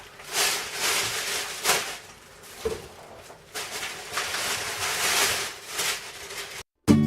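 Hand work on a fuel pump: several swells of hissing, rubbing noise with a few sharp clicks. The sound cuts out near the end and acoustic guitar music begins.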